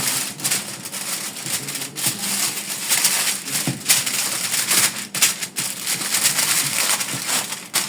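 Aluminium foil crinkling and crackling as it is folded and pressed around a whole fish, a continuous run of sharp crackles.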